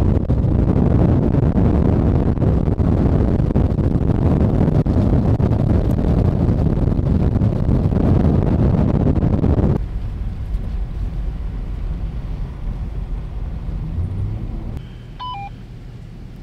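Vehicle driving: a steady, loud rumble of engine and road noise. About ten seconds in it drops abruptly to a quieter low rumble.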